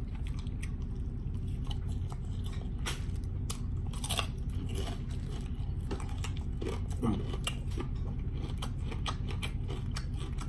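Close-miked mukbang chewing and biting of a bacon and egg omelet, with many small irregular crunches and mouth clicks over a steady low hum.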